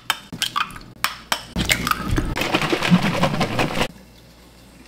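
Eggs being cracked against a glass bowl: a few sharp taps and cracks in the first second and a half, then about two seconds of busier clattering and scraping in the bowl before it goes quiet.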